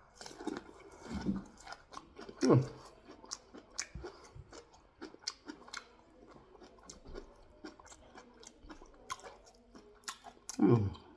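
Close-miked biting and chewing of food: many short, crisp crunches and wet mouth clicks, broken by a few short bits of voice.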